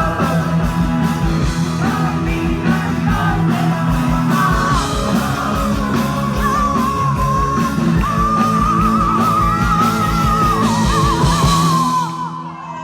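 A live rock band playing the end of a song: steady drums, bass and guitar under a long, wavering high note through the second half. The music stops just before the end.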